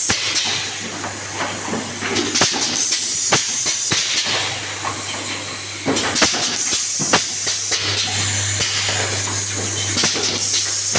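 Automatic confetti filling machine running: a steady hum and a constant high hiss, with many irregular clicks and knocks of its moving parts.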